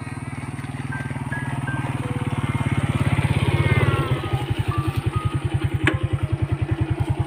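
Small motorcycle engine running as the bike approaches, growing louder, then idling with an even putter from about four seconds in. A single sharp click near the end.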